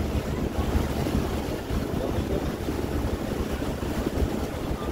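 Tour boat under way: its engine gives a steady low hum under wind buffeting the microphone and water noise along the hull.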